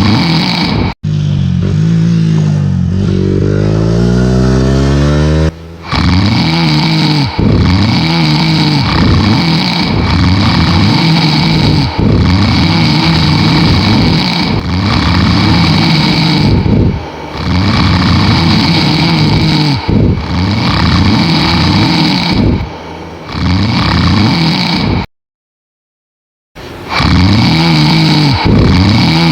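Loud snoring cut together with a motorcycle engine sound effect. About two seconds in the engine revs up in a rising whine, then there is a run of repeated rising-and-falling engine-like snores. It cuts out to dead silence for about a second and a half near the end.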